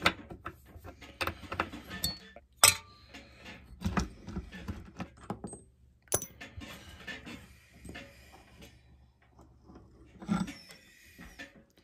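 Metal tools and parts clinking and clanking against a chainsaw as its clutch is worked loose and off the crankshaft, with sharp metallic knocks about two and a half and six seconds in and a duller thump near the end.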